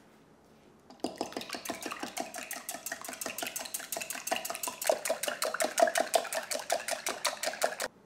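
Metal wire whisk beating raw eggs in a glass measuring cup, the wires clicking and scraping against the glass in fast, even strokes, about six a second. It starts about a second in and stops abruptly near the end.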